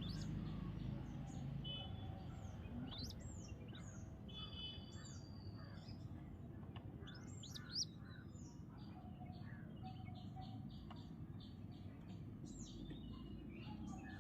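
Birds chirping: many short, high chirps and quick falling notes, with a single short knock about eight seconds in.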